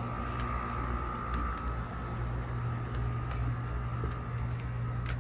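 TempStar outdoor air-conditioning units running with a steady low hum, which the owner calls smooth. A thin, steady high whine rides over the hum and cuts off with a click near the end.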